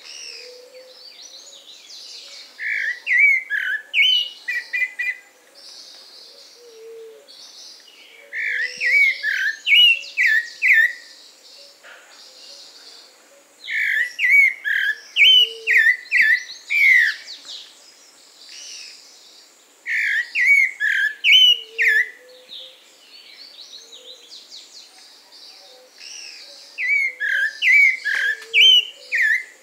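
Pale-breasted thrush (sabiá-branco, Turdus leucomelas) singing its melodious song: five phrases of short, quick whistled notes a few seconds apart. Fainter chirps of other birds fill the gaps.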